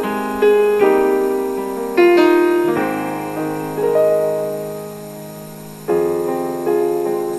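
A keyboard with a piano sound playing slow instrumental music: chords and single melody notes struck every second or so, each left to ring and fade.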